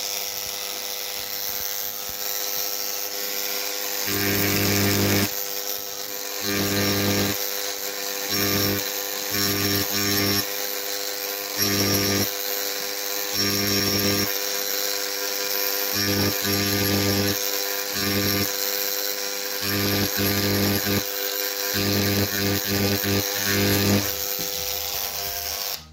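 Parkside electric engraving pen buzzing as its tip engraves into painted iron. The buzz swells and drops in stretches again and again from about four seconds in.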